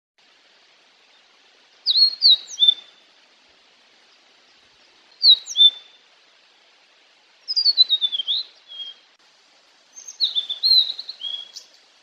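Male blue-and-white flycatcher singing: four short phrases of high whistled notes, many sliding downward, a couple of seconds apart.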